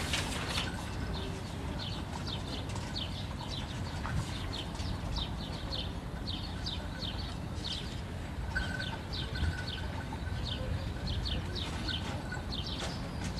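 Small birds chirping, a quick irregular run of short downward-sliding calls, a few each second, over a steady low background rumble.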